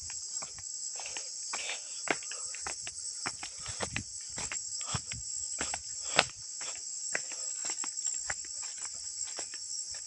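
Steady high-pitched chorus of insects. Beneath it are irregular footfalls and the rustle of someone walking through grass and leaves, with one sharper click about six seconds in.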